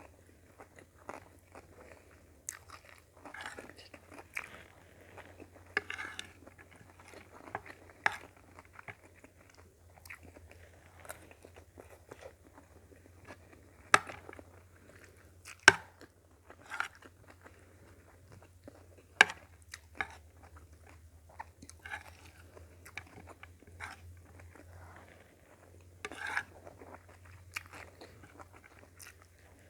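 Close-up chewing and crunching of a mouthful of food, irregular wet crackles with a few sharper, louder crunches, over a faint low hum.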